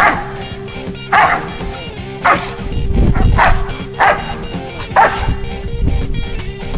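Large white dog barking from inside a pickup truck's cab at a man approaching the truck, guarding it: about six sharp barks, roughly one a second, over background music.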